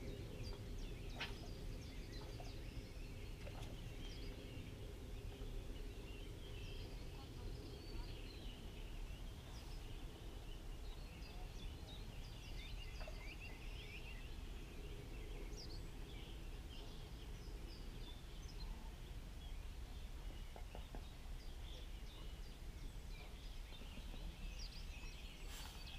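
Small birds chirping and singing, many short calls scattered throughout, over a steady low rumble of outdoor background noise, with a couple of faint clicks near the start and the end.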